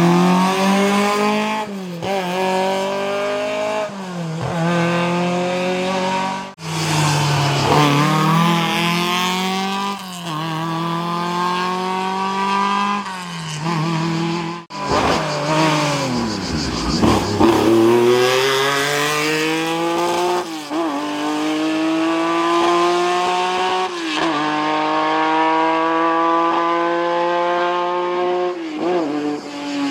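Historic racing car engines accelerating hard through the gears, each rising note broken by a quick upshift, over several edited passes. About 17 seconds in, one car passes close by.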